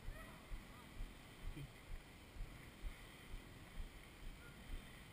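Faint, distant enduro motorcycle coming up a dirt trail, mostly buried under soft low rumbling thumps on the microphone about twice a second.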